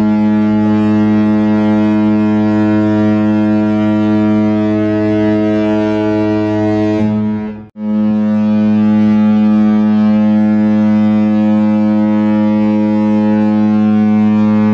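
Cruise ship's horn sounding two long, deep blasts, each held steady for about seven or eight seconds, with a very short break between them.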